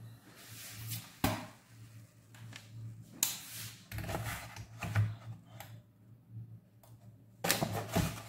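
Kitchen handling noises: a glass kitchen scale is set down and slid on the counter with a few sharp knocks and clicks, and near the end a plastic food bag rustles as it is handled. A faint steady low hum runs underneath.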